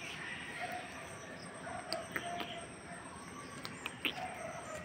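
Birds calling over a steady outdoor hiss: several short, low, dove-like calls and a few brief high chirps, with a few faint clicks scattered through.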